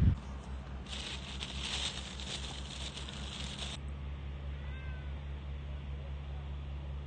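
A cat meowing faintly a few times, short calls about two-thirds of the way in, over a steady low hum. Earlier, a hiss-like rustle runs for about three seconds.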